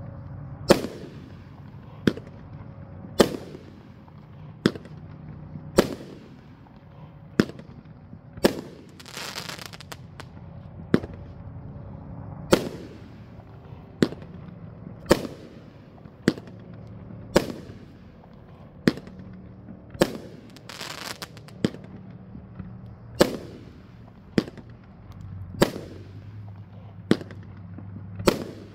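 A 500-gram, 16-shot firework cake firing its vertical shots one after another, a sharp bang about every second and a half. Twice there is a longer crackling hiss, about nine seconds in and again about twenty seconds in.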